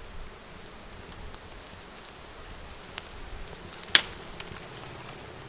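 Faint buzzing of wild honeybees around their comb on a tree branch, broken by two sharp cracks, a small one about three seconds in and a louder one about four seconds in, as the twigs and dry grass around the nest are pulled.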